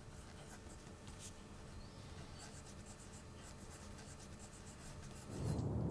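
Faint scratching of a pen writing on paper, in short irregular strokes. Background music comes in near the end.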